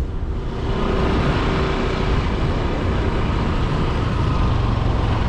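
Motorcycle engine running steadily on the move, with road noise.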